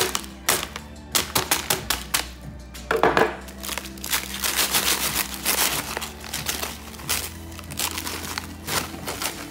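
A hammer knocks several times on a paper-wrapped lump of hardened granulated sugar, with the heaviest blow about three seconds in. Paper crinkling and rustling follows as the wrapping is opened out over the crushed sugar, with a few small knocks near the end.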